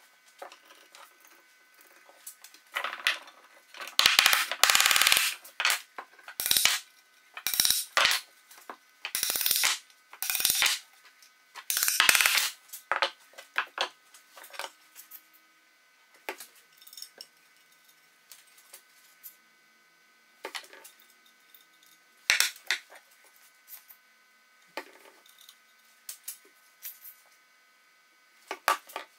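Clatter and knocks of wooden frame parts being handled, fitted together and set down on a workbench. The sounds come in a dense run of short noisy bursts over the first half, then thin out to scattered clicks.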